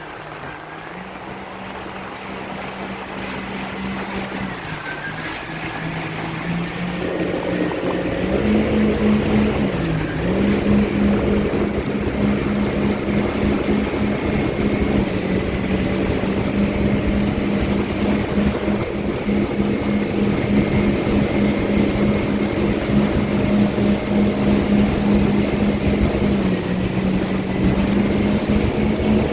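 A small watercraft's engine running under way, growing louder over the first several seconds and opening up about seven seconds in, then holding a steady high drone.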